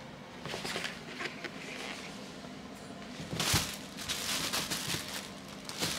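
Nylon fabric of a pop-up cat tunnel rustling and crinkling as a kitten paws and climbs on it, in scattered bursts, the loudest about three and a half seconds in.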